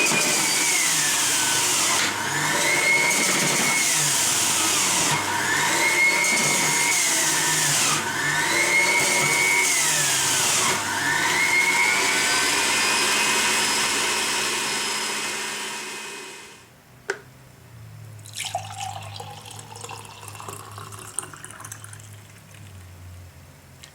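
Electric juicer motor running as carrots are fed through it, its whine rising and falling in pitch about four times. It winds down and stops about two-thirds of the way through, leaving quieter clicks and handling sounds.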